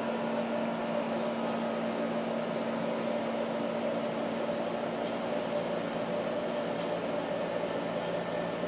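Steady machine hum, like a fan or air-conditioning unit running, with faint light ticks every second or so.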